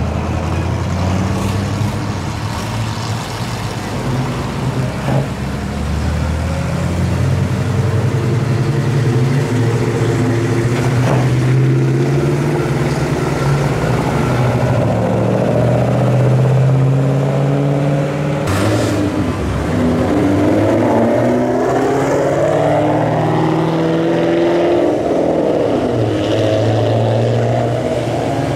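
Classic cars and vintage pickup trucks driving past one after another, each engine's note shifting as one car follows the next. In the second half the notes rise as the cars accelerate away.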